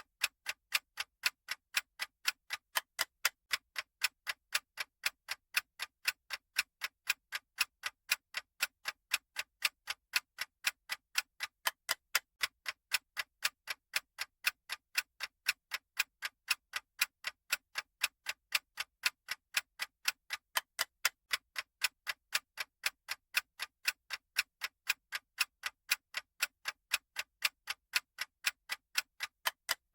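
Countdown timer's clock-style ticking sound effect: short, sharp ticks at an even rate of about two to three a second, steady throughout.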